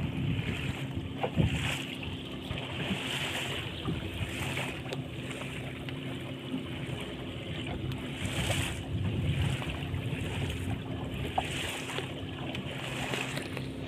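Small wooden motor fishing boat under way: its engine runs with a steady hum while water rushes and splashes along the hull and wind buffets the microphone. There is a single sharp knock about a second in.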